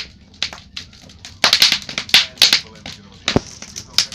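Wood fire crackling in a fireplace: irregular sharp pops and snaps, denser in the middle, with one heavier pop about three and a half seconds in.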